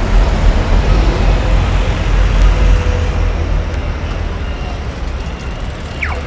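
A Luas light-rail tram passing close by with a heavy low rumble that eases after about three seconds, over general city-street noise. Near the end a pedestrian crossing signal turns green and starts its rapid ticking.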